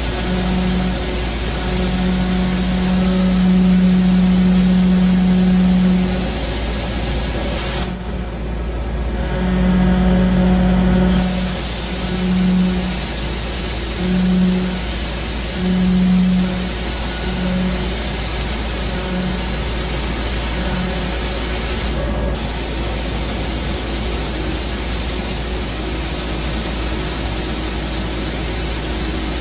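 CNC machining of stainless steel, side milling with an end mill: a steady hiss of spray runs throughout, under a low hum that comes and goes in shorter spells after about nine seconds and stops a little past twenty seconds.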